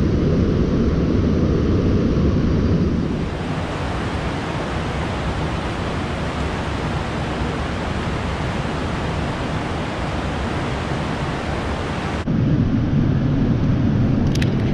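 Steady rushing roar of water pouring from a dam's spillway into the river below. It turns thinner and hissier about three seconds in and deepens again near the end.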